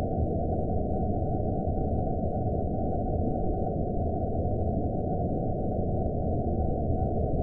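Horror-film ambience: a steady, muffled low rumble of noise with a faint thin high tone held above it.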